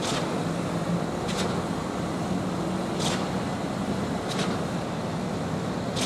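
Concrete pour machinery running steadily: diesel truck engines humming with a sharp, short hiss about every one and a half seconds, the regular cycling of the concrete pump.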